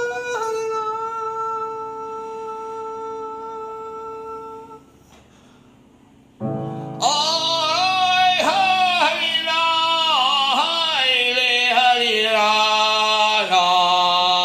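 A man singing a Chinese folk song to his own keyboard accompaniment. A long held note fades out about five seconds in. After a short pause a chord comes in, then loud vocal phrases with sliding, ornamented pitch.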